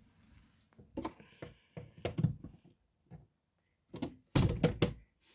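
A series of handling clicks and knocks, such as doors or fittings being worked, with a louder cluster of knocks about four and a half seconds in.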